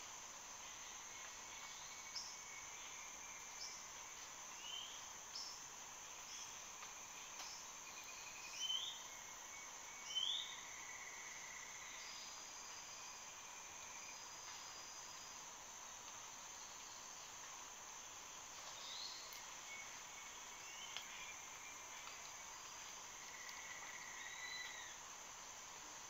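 Amazon rainforest ambience: a steady high-pitched insect chorus with scattered bird calls over it. The calls are short rising chirps and a few held whistles, the loudest a pair of chirps about nine and ten seconds in.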